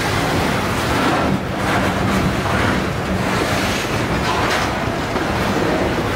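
Loaded covered hopper cars of a long freight train rolling past at close range: a loud, steady rumble of steel wheels on the rails.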